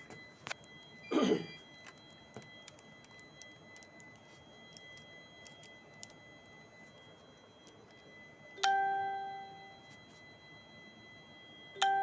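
Two bell-like metallic dings about three seconds apart, near the end, each struck sharply and ringing out for about a second. About a second in there is a short rushing swish.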